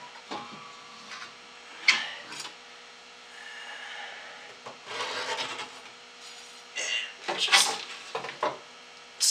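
Metal parts being worked off a picture tube's neck inside a wooden TV cabinet as the ion-trap magnet and mounting hardware are removed. Irregular scraping and rubbing with clicks, a sharp click about two seconds in, and busier scraping in the second half.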